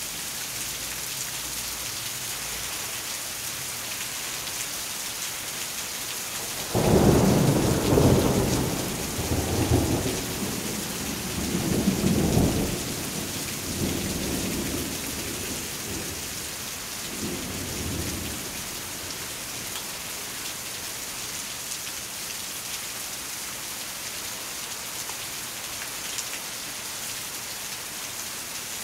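Steady rain, with a roll of thunder that begins abruptly about seven seconds in and rumbles low in several swells for some ten seconds before dying away.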